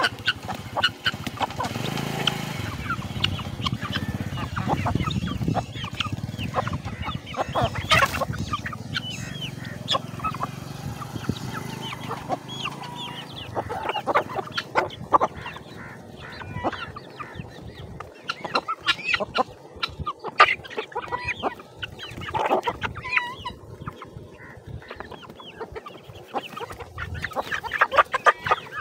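A flock of chickens clucking and calling in short, uneven bursts as they crowd around and feed, with sharp ticks among the calls.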